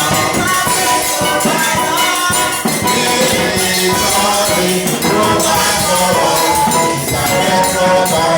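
Church praise music: a band playing a lively song with drums and hand percussion under a pitched melody line, steady and loud throughout.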